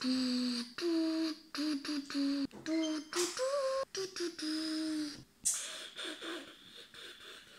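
A voice making mouth sound effects: a string of short held hums, each under a second and mostly on one steady pitch, with breathy hissing bursts between them. It grows fainter in the last couple of seconds.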